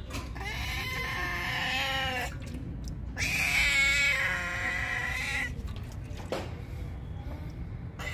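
Tabby domestic cat giving two long, drawn-out meows of about two seconds each, the second louder: a hungry cat calling for food.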